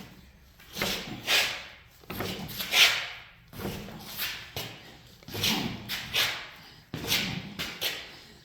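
Hand-worked number 6 fly press bending 3/16-inch steel strap around a hinge-rolling guide: a string of uneven creaking, scraping strokes and knocks, about one every half second to second.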